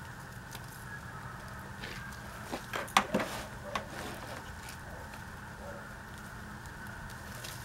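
A few sharp snips and crackles of hand pruning shears cutting through ginger stalks and rhizomes in a clump of potting soil, bunched together about three seconds in, over a steady low hum.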